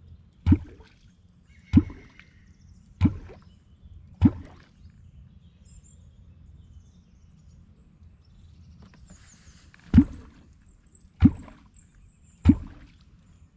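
Wooden catfish clonk struck into the river surface, making deep hollow plops with a short upward 'bloop'. There are four strokes about 1.2 s apart, a pause of about six seconds, then three more. This is the traditional way of calling up wels catfish.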